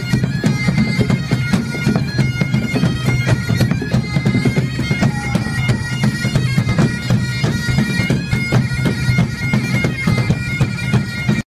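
Bagpipe music: a steady low drone under a chanter melody. It cuts off suddenly just before the end.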